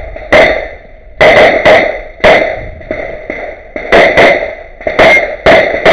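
Rapid pistol fire from an STI TruBor 9x19 race pistol shooting major-power-factor loads: about nine loud shots, several fired in quick pairs, each ringing out briefly.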